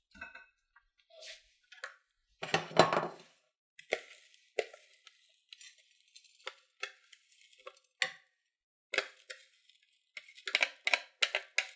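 A metal spoon scraping and tapping against a plastic food processor bowl as buttery cookie crumbs are tipped into a glass baking dish, with clinks of glass and a heavier knock about three seconds in. The taps come quicker near the end.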